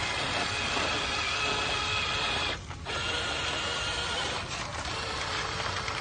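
Electric motors and gearboxes of radio-controlled toy dump trucks whirring under load as they strain against a tow chain, with a short break about two and a half seconds in.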